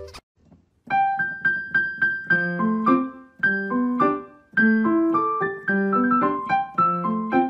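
Background music: a piano melody of struck, decaying notes, starting about a second in after a brief silence.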